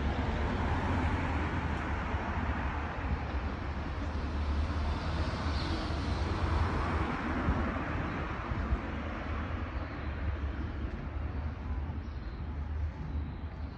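City street traffic noise: a steady low rumble, with a passing vehicle that swells through the middle and fades away toward the end.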